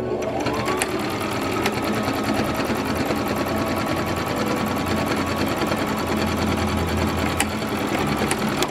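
Electric sewing machine sewing a straight stitch at a fast, even pace. Its motor whine rises as it starts up and then holds steady, and it stops near the end.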